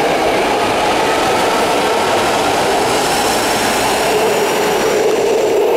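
Nine-car BART train pulling out of an underground station past the platform: a loud, steady rush of wheels on rail with a whine that slowly falls in pitch.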